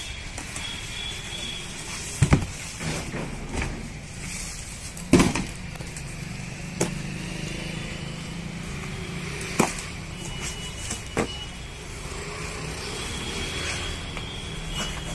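Cardboard packaging being handled and opened: about five sharp knocks and thumps as box flaps and the inner box are moved, the loudest about five seconds in, over a steady background noise.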